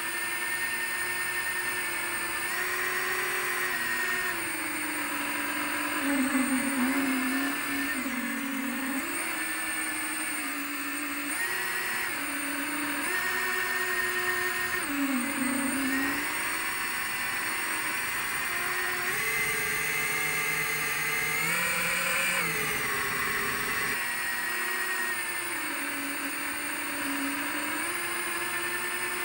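FPV quadcopter's motors and propellers whining close to the onboard microphone, the pitch stepping up and down again and again with throttle changes. About two-thirds of the way in the whine climbs steadily for a few seconds, then drops back.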